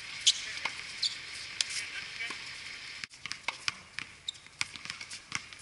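Outdoor pickup basketball: the ball bounces on the hard court in scattered sharp knocks, and players' voices are heard faintly. About three seconds in, the sound breaks off abruptly and comes back quieter.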